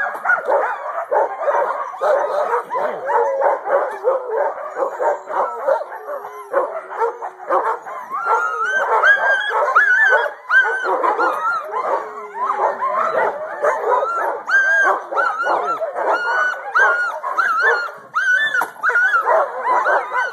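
A hitched team of sled dogs barking, yipping and howling over one another without a break, with high yelps that rise and fall. It is the excited clamour of sled dogs in harness waiting to run.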